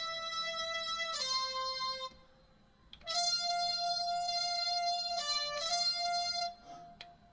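Roland Aerophone Mini digital wind instrument played one note at a time in a slow, halting practice of a simple tune: two held notes, a pause of about a second, then three more held notes before it stops again near the end.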